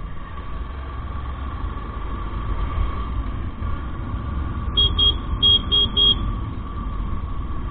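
Motorcycle riding along with a steady engine and wind rumble; about five seconds in, a horn is tooted in a rapid string of about five short beeps.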